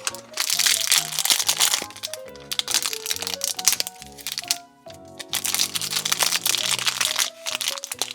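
Background music with bursts of crinkling plastic wrapper as small accessory packets are torn open and unwrapped.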